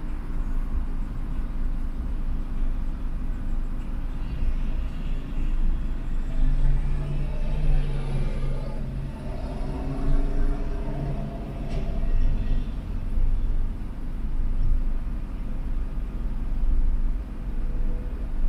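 Steady low rumble of a car idling at a standstill in traffic, heard from inside the car. From about six to twelve seconds in, another vehicle's engine note rises and falls over it, then fades.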